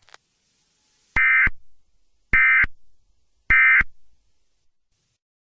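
Three short, buzzy electronic data bursts about a second apart: the end-of-message tones of an Emergency Alert System broadcast, closing the alert.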